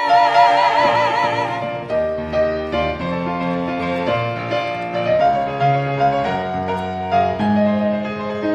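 Ensemble singers hold the last note of a sung line with vibrato for about a second and a half, then a piano plays an instrumental interlude of chords and melody for the rest.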